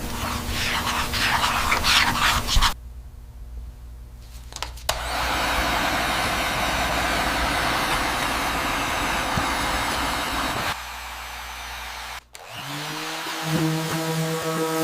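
Handheld power tools running in short clips joined by abrupt cuts. The longest clip, from about 5 to 11 seconds, is a steady loud blowing hiss. Electronic music starts near the end.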